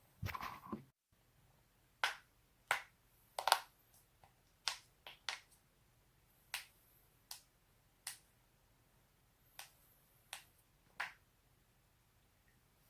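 A series of sharp cracking pops from joints being cracked in the neck or back, about fourteen single and double pops at irregular intervals, starting about two seconds in.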